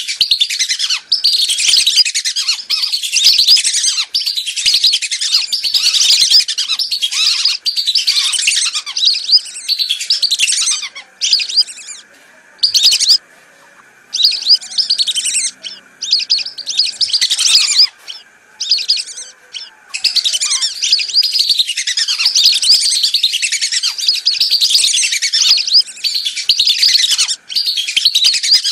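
A flock of whistling ducks calling: dense, overlapping high whistles that thin to scattered calls with short gaps for several seconds around the middle, then pick up again into a steady chorus. It is a recorded lure-call track for drawing whistling ducks in.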